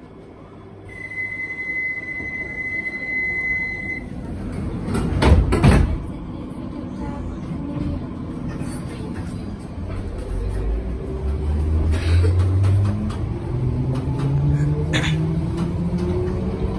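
London Underground 1972 Stock Bakerloo line train at a platform. A steady high beep sounds for about three seconds, then the sliding doors shut with a loud bang about five seconds in. The traction motors then whine steadily upward in pitch as the train pulls away and accelerates.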